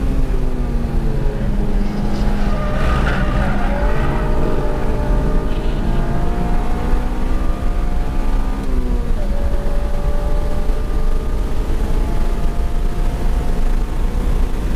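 Honda Civic Si's K20Z3 2.0-litre four-cylinder engine heard from inside the cabin at track pace, its pitch climbing under acceleration and dropping sharply about two-thirds of the way through, over steady road noise. A brief tyre squeal about three seconds in.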